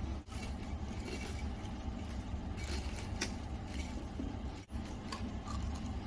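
A person biting into and chewing a piece of aji fry (breaded fried horse mackerel), small sharp crunches and clicks scattered through, over a steady low room hum.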